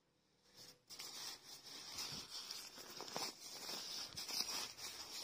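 Shiny nylon jacket fabric rustling and crinkling as jackets in a pile are handled and turned over by hand, starting about a second in after a near-silent moment.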